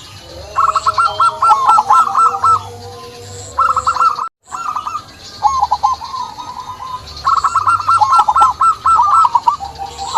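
Zebra dove (perkutut) cooing: several bursts of rapid, staccato repeated notes, each burst lasting a second or two, with a brief cut to silence a little after four seconds in.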